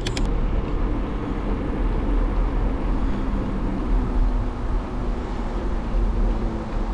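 Steady rumble of road traffic, with faint shifting engine hum. A few sharp clicks right at the start.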